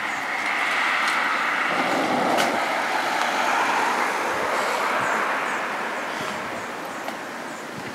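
Jet engine noise from a Boeing 777-300 airliner on final approach: a steady rushing sound that eases off slightly in the last couple of seconds.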